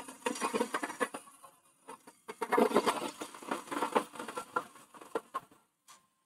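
Hollowing tool cutting inside a spinning holm oak hollow form on a wood lathe: an irregular patter of scraping and ticking with short pauses, dying away near the end.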